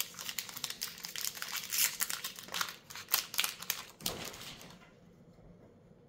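Magic: The Gathering booster pack wrapper crinkling and crackling as it is torn open and pulled apart by hand, a dense run of sharp crackles that dies away about four seconds in.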